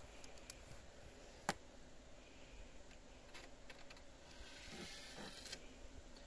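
Faint clicks and light scraping of a precision knife trimming excess window tint film, with one sharp click about a second and a half in and a soft scrape near the end.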